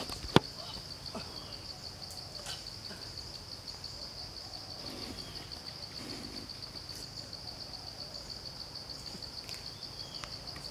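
Insects singing in a steady, high-pitched, rapidly pulsing drone, with a single sharp snap about half a second in.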